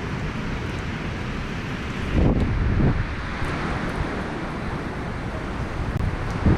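Hurricane Ida's storm wind rushing steadily, with gusts buffeting the microphone about two seconds in and again near the end.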